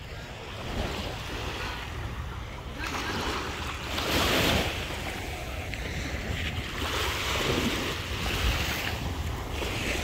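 Small sea waves washing onto a sandy beach, swelling louder about four seconds in and again later, with wind rumbling on the microphone.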